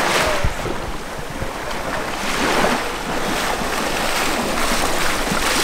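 Many people wading through knee-deep sea water, legs churning and splashing in repeated surges, with wind buffeting the microphone.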